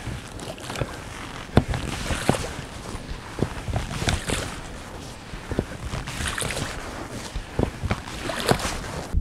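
A small boat being pushed off through boggy muck and shallow water: irregular knocks against the hull over swishing and sloshing of water and mud.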